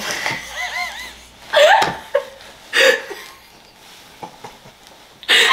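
Two women laughing: high-pitched wavering giggles, then a few breathy bursts of laughter that die down over the last couple of seconds.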